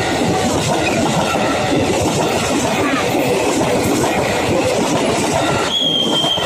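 KRL commuter electric train passing close at speed: a loud, steady rumble with rapid wheel clatter over the rails. A brief, steady high tone sounds near the end.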